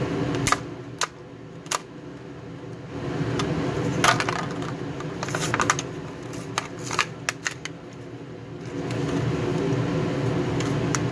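Plastic blister pack being pulled apart and peeled from its cardboard backing: a scatter of sharp plastic crackles and clicks, most of them about halfway through, over a steady low hum.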